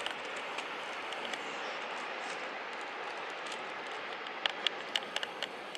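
Steady outdoor rushing noise, with a handful of sharp clicks around four and a half to five and a half seconds in.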